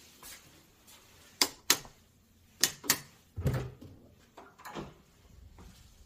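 Sharp clicks in two quick pairs, then a duller knock and a few softer knocks as an interior door's lever handle and latch are worked and the door is pushed open.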